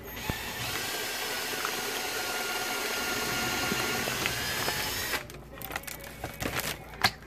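Cordless drill running steadily for about five seconds as it bores a pilot hole into a cabinet frame, then stopping abruptly. A few light clicks and knocks follow as the drill is pulled away.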